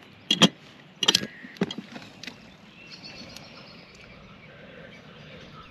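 A handheld lighter clicked several times, burning the cut ends of Dyneema line: a few sharp clicks in the first two seconds or so, then only a faint steady background hiss.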